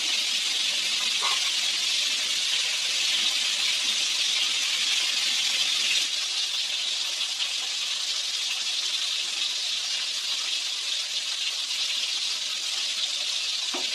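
Pot of mung bean soup boiling hard on a stove, a steady hiss of bubbling and steam.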